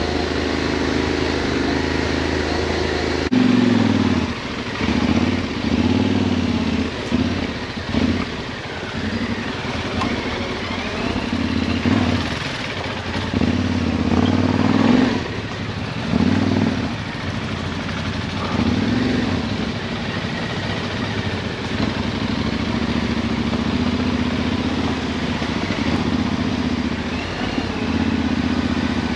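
Yamaha Ténéré 700's parallel-twin engine idling steadily for about three seconds, then pulling away off-road, the revs rising and falling over and over as the throttle is opened and closed.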